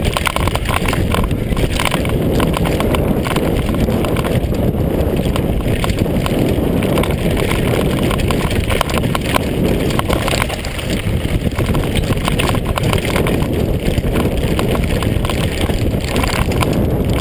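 Mondraker Kaiser downhill mountain bike rattling at speed over a loose gravel trail: a continuous crunch of tyres on stones with dense, irregular clatter from the bike, and wind buffeting the microphone.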